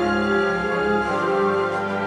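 Background music: slow orchestral music with sustained notes.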